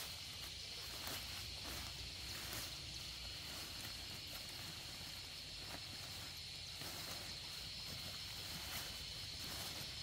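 Steady, high-pitched drone of insects, with faint scattered clicks over it.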